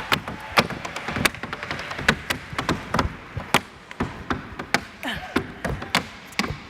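Rhythmic percussion: a run of sharp, dry hits, about three a second, with no melody.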